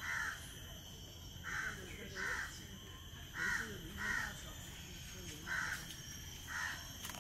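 A bird calling: seven short calls, mostly in pairs, one pair about every two seconds, over a faint steady high-pitched tone.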